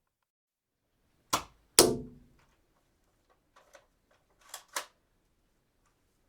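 Dart gun being cocked and shot: two loud sharp snaps half a second apart, then a few light clicks and two more snaps close together near the end.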